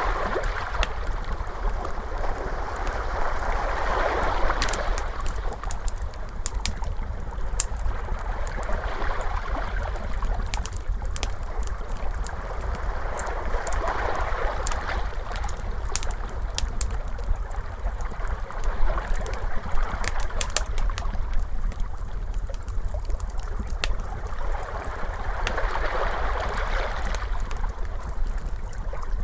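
Ocean waves washing in and drawing back in slow swells several seconds apart, mixed with a wood fire crackling and popping in sharp scattered snaps, over a steady low rumble.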